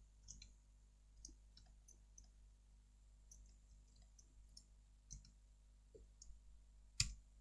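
Faint, irregular clicking of a computer mouse and keyboard, with one sharper click near the end.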